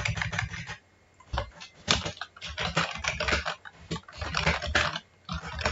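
Computer keyboard typing: rapid runs of keystrokes in bursts, with a short pause about a second in.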